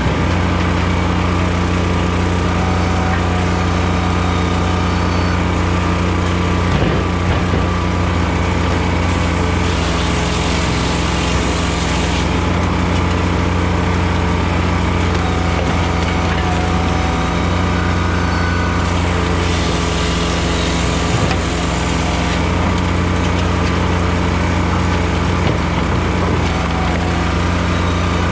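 Firewood processor running steadily on its engine, with split softwood knocking as it drops out of the splitter, a few sharper knocks along the way.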